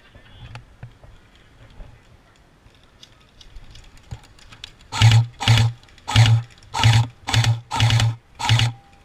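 Airsoft electric rifle firing a string of short full-auto bursts, about two bursts a second, beginning about five seconds in; each burst is a quick buzzing rattle of the gearbox cycling.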